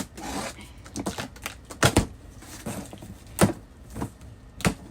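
A box of perfume being opened and its contents handled: a string of sharp clicks and knocks, the loudest about two seconds in, again about three and a half seconds in and near the end, with softer rustling between.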